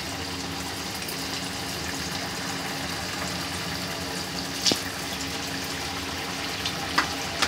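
Samosas deep-frying in hot oil in an aluminium kadai: a steady bubbling sizzle as more samosas are added. A couple of short clicks come about two-thirds of the way in and near the end.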